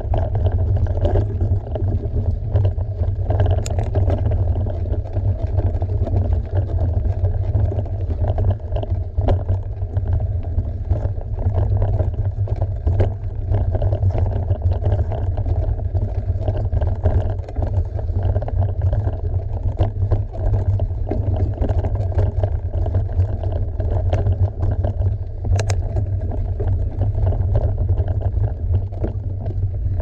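Mountain bike riding a dirt trail: a steady, loud low rumble of wind on the microphone and tyres rolling, with scattered sharp clicks and rattles from the bike.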